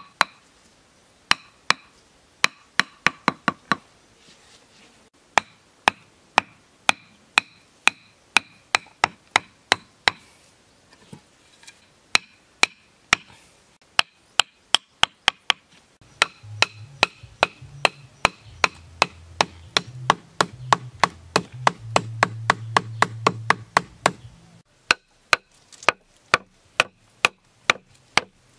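Repeated sharp blows of a wooden club striking wooden stakes, about three a second with short pauses. A low hum joins for several seconds in the middle.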